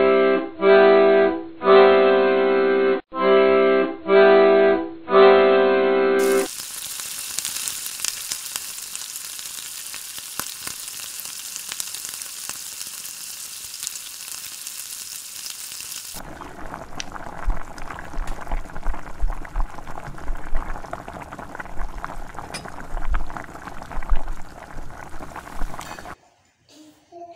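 About six seconds of music, sustained chords in short blocks. Then a radish-stuffed paratha sizzles on a hot tawa griddle as it is turned with tongs. From about sixteen seconds a rougher frying noise follows, with a few light knocks.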